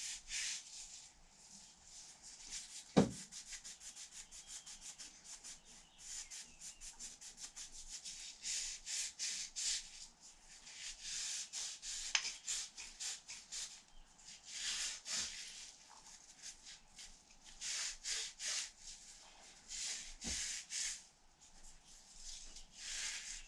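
Hand cleaning of a C6 transmission part: quick, repeated rubbing strokes, several a second, coming in spells. A sharp knock about three seconds in, with a few lighter knocks later.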